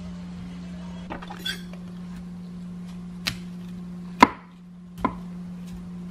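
Knife cutting through broccoli stems and knocking on a wooden cutting board: about five sharp, irregular knocks, the loudest about two-thirds through.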